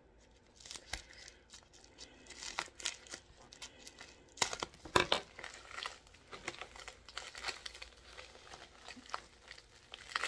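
Thin plastic wrapping being crinkled and torn open by hand, in a run of irregular crackles that is loudest about five seconds in.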